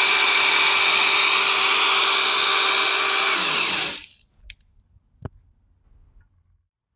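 Electric drill spinning the oil pump of a 383 stroker small-block Chevy through the distributor hole, priming the oil system as the gauge holds pressure. The steady whir winds down and stops about three and a half seconds in, followed by two sharp clicks.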